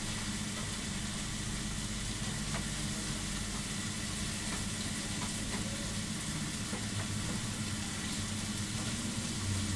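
Marinated meat pieces sizzling steadily on a flat-top griddle as they are turned, over a steady low hum.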